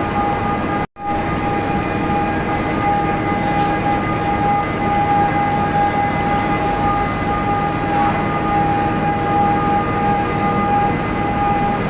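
Hydropower plant machinery running with a loud, steady hum and a constant high-pitched whine, broken by a brief cut about a second in.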